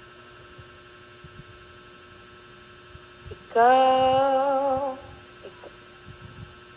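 Steady electrical mains hum picked up by the microphone. About halfway through, a woman's voice holds one wavering note for about a second and a half, the loudest sound here.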